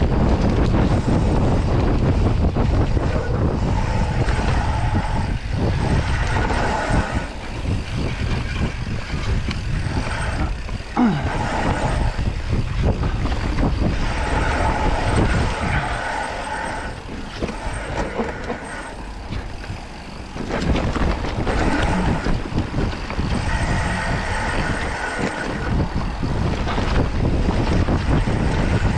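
Mountain bike descending a dirt trail at speed: wind rushing over the camera microphone and tyres rumbling over the dirt. A higher buzzing rattle comes and goes, and the noise eases for a few seconds about two-thirds of the way through.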